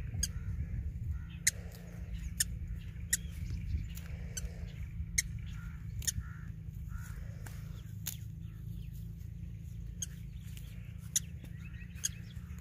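Short, sharp snaps about once a second as plant stems are plucked by hand, over a steady low rumble. Faint bird calls come and go in the background.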